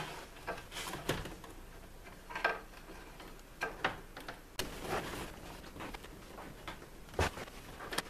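Hands working wires into the bus bar of an RV power center: scattered light clicks, taps and rubs as stiff wire is pushed and bent into place.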